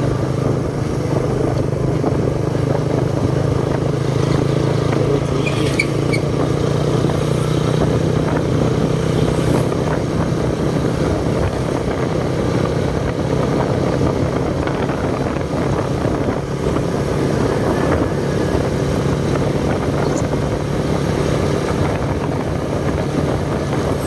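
Motorcycle engine running steadily at cruising speed, with wind and tyre noise from the road.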